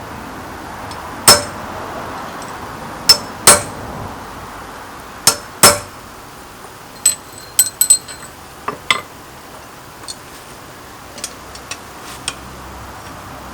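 Hammer blows ringing on steel at the anvil as an old ring spanner is forged: five heavy strikes in the first six seconds, then a run of lighter taps and clinks, over a steady background noise.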